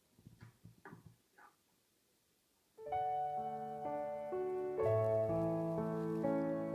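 Background piano music that starts about three seconds in, after a few faint clicks and a short silence.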